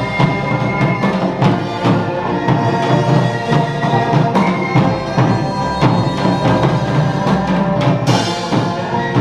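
Background music with a steady percussive beat and sustained instrumental tones.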